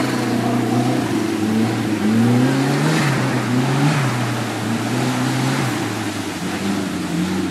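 Off-road competition vehicle's engine revving up and down several times while it drives the course, with the revs easing off about six seconds in.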